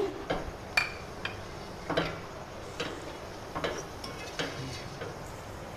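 Spatula knocking and scraping against a cooking pot while stirring chicken pieces in masala: several irregular taps, one with a short ring about a second in.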